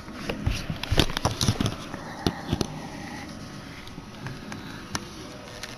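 Quick clicks and knocks of the mini fridge's removable inner rack and plastic interior being handled, about a dozen in the first three seconds, then a few scattered clicks.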